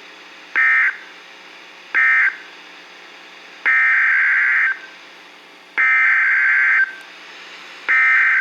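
Emergency Alert System digital data tones, a harsh buzzing warble. Two short bursts early on mark the end of the first tornado warning. After a pause come three longer bursts of about a second each, the header that opens the second warning, with a faint steady hum between them.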